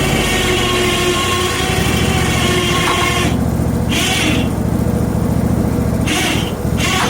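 Hud-son Homesteader HFE30 portable band sawmill running with its engine going steadily. About three seconds in, the high hiss of the band blade cutting stops, and two short hissy bursts follow.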